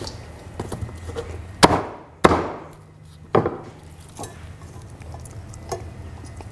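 Heavy cleaver chopping fried chicken pieces on a thick log-round wooden chopping block: three hard chops in the first half, with a few lighter knocks and taps around them.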